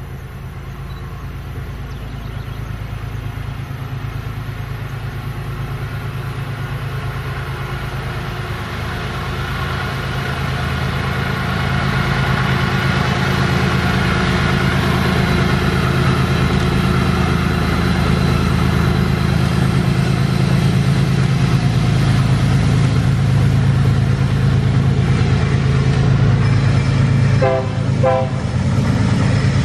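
Freight train led by Wabtec ES44ACi diesel-electric locomotives working up a steep grade. The engines' steady low drone grows louder as the train approaches. Near the end come a few short blasts of the locomotive horn.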